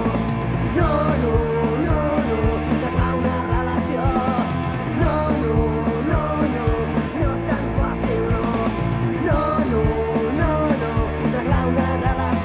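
Rock band playing: a drum kit with regular cymbal hits, guitars and bass, with a melody line running over the top.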